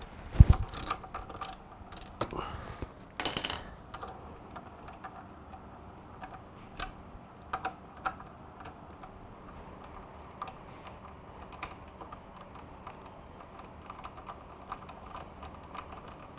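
Clicks and metallic taps of a socket ratchet and socket on motorcycle brake caliper bolts as they are loosened and backed out. There is a single heavier knock about half a second in, dense clusters of clicks in the first few seconds, then sparse single clicks.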